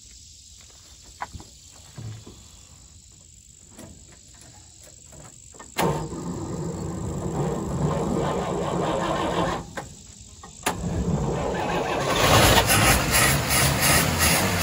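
A 1954 Chevrolet 3800 pickup's straight-six engine being started after sitting for years. A few faint clicks come first. About six seconds in, the engine turns over with a sudden loud noise, stops just before ten seconds, then is cranked again and catches. It runs louder with a fast, even beat near the end.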